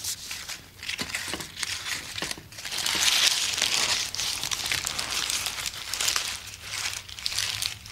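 Paper cover and pudding cloth being peeled off a steamed pudding basin: continuous crinkling and rustling, loudest a few seconds in.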